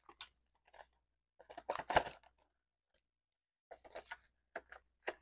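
Paper bills and the plastic envelope pages of a cash binder rustling and crinkling as cash is tucked in and a page is turned, with a light tap about two seconds in, the loudest sound.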